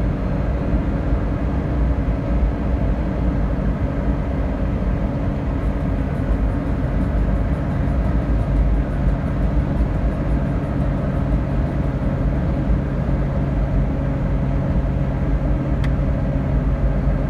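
Suzuki Every Turbo's 660 cc three-cylinder turbocharged engine running steadily at high revs, near 6,000 rpm, at about 100 km/h, heard inside the cabin together with road and wind noise.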